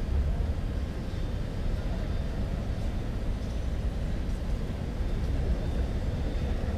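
Outdoor city-square ambience: a steady low rumble with faint distant voices.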